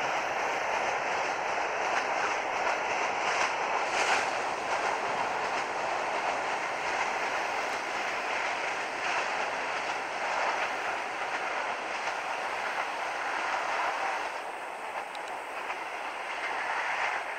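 Meter-gauge passenger train coaches rolling away on the track: a steady rush of wheels on rail with a few knocks, growing quieter after about fourteen seconds as the train draws off.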